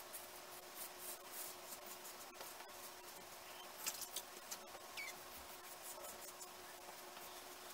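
Slant safety razor scraping through two days of stubble under shaving lather: faint, scratchy short strokes, with a few light clicks around the middle.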